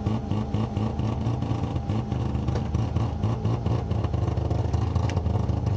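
Mazda RX-7 rally car's rotary engine idling steadily, heard from inside the cabin.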